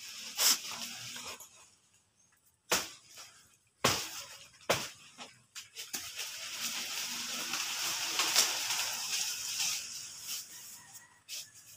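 A few sharp knocks in the first five seconds, then a long rustle of banana leaves from about six to eleven seconds in, as a banana plant is worked on by hand.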